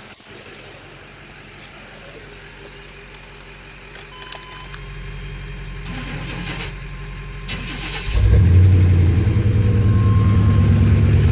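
1999 Chevy Tahoe's engine cranking and catching about eight seconds in, then running steadily. The truck had not been staying running.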